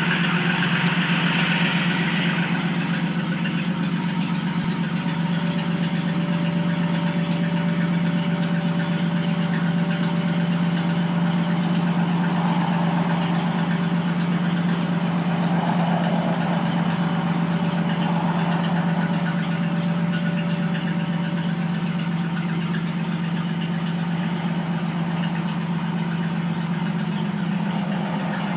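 1956 Mack B-series fire engine pumper's engine idling steadily with an even low rumble.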